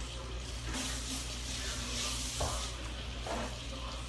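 Chuck roast searing in hot oil and butter in a skillet, sizzling. The sizzle swells about a second in and eases off near three seconds, with a light knock partway through.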